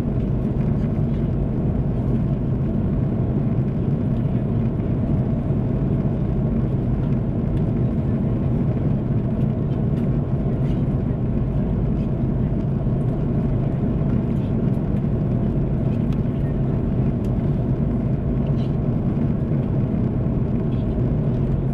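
Steady cabin noise of an Airbus A330-300 at cruise, the low rumble of its engines and rushing airflow heard from a window seat inside the cabin. A few faint ticks come through the rumble.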